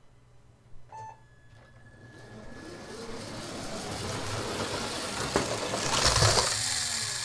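RC-converted LEGO passenger train running on plastic track, its wheels rattling and clicking over the rail joints along with the hum of its small electric drive motor. It grows louder as the train comes round the oval and is loudest about six seconds in as it passes close by, then eases off.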